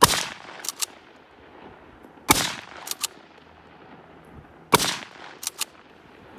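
Three rifle shots from a 1889 Schmidt-Rubin firing 7.5x55 Swiss ammunition, about two and a half seconds apart. Two short clicks or cracks follow each shot within a second.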